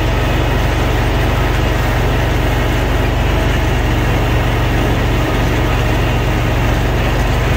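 Ferris ISX 2200 zero-turn mower's engine running steadily at an even pitch while the mower drives across the lawn.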